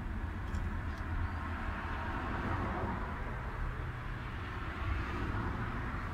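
Steady low background rumble, with two faint clicks about half a second and one second in.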